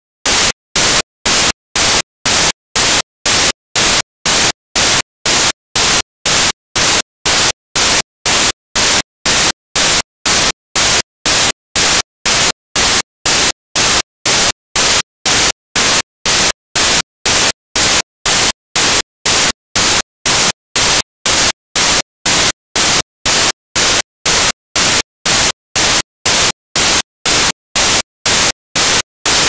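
Loud static hiss switching on and off in an even rhythm, about two bursts a second with silent gaps between: a recording glitch in the car dashcam's audio rather than a sound from the road.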